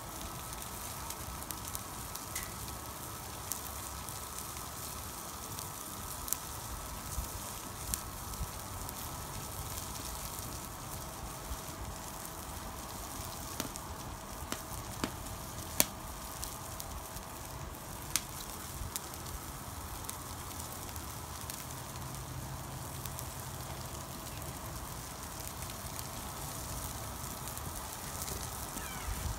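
Sauced chicken pieces sizzling on foil over an open-flame grill, a steady hiss with scattered sharp pops and crackles from the fire.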